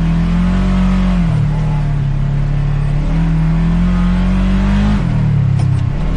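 Side-by-side UTV engine under throttle on a rough trail, its pitch dropping about a second in, climbing again around three seconds, dropping near five seconds and rising again at the end as the driver eases off and gets back on the gas.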